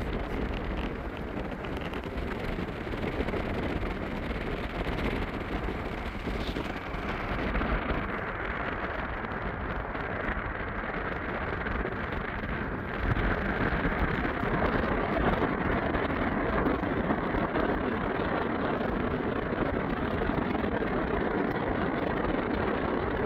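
Steady tyre, road and wind noise of a moving car heard from inside, with no engine note standing out; it grows a little louder about halfway through.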